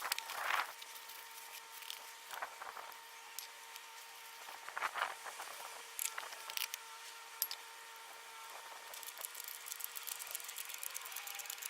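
Scattered clicks, clinks and rustling of parts and hand tools being handled during coilover strut work, over a faint steady hum.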